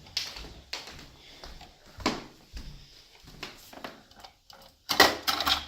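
Vacuum cleaner attachment tools being handled and fitted onto the storage clips on the back of the canister: scattered plastic-and-metal knocks and clicks, with a burst of sharper clacks about five seconds in.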